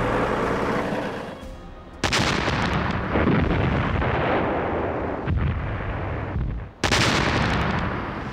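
Field artillery gun firing twice, about five seconds apart: each shot is a sudden blast that trails off in a long rumble. Before the first shot, a steady vehicle engine drone fades away.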